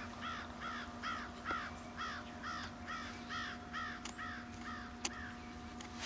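An animal calling a long, even run of short, harsh notes, about two and a half a second, that fades out near the end. There are a couple of faint ticks late on.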